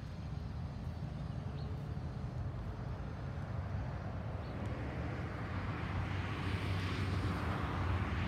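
Steady low rumble of distant motor traffic, with a rushing hiss that grows louder over the last few seconds.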